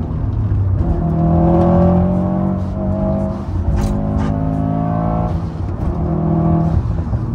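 Turbocharged 2.5-litre flat-four boxer engine of a tuned Subaru WRX STI accelerating hard, pulling up in three surges with short breaks between them as it shifts gears, with a couple of sharp clicks in the middle.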